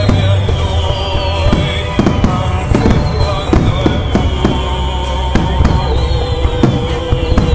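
Aerial fireworks bursting in quick, irregular succession, with several long falling whistles over the bangs.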